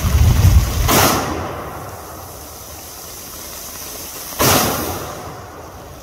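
Two .50 caliber rifle shots about three and a half seconds apart, each a sharp crack fading out over about a second, fired at an air compressor downrange. A loud low rumbling runs through the first second, before the first shot.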